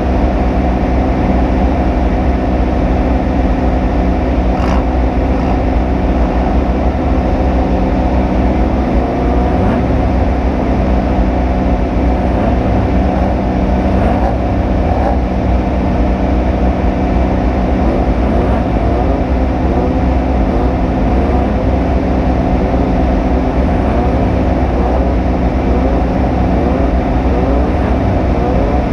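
Off-road race vehicle's engine running hard, heard on board over a heavy, steady rumble. Through the second half its note climbs again and again in short rising sweeps.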